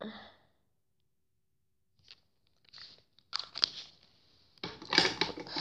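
Handling noise close to a phone's microphone: a few small clicks and taps as makeup items are picked up, then a louder rough rustle near the end as a hand passes right in front of the microphone.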